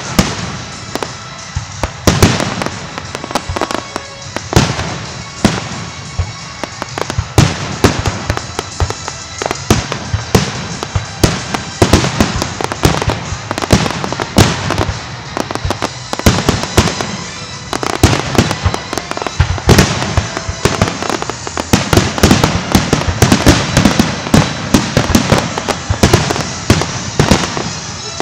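Aerial firework shells bursting in a dense finale barrage, several loud bangs a second overlapping with crackle, growing thicker in the second half.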